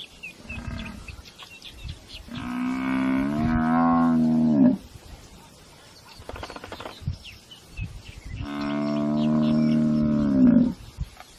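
Cape buffalo bellowing in distress while hyenas bring it down and start eating it alive. Two long bellows, each a little over two seconds, held steady and then dropping in pitch as they end.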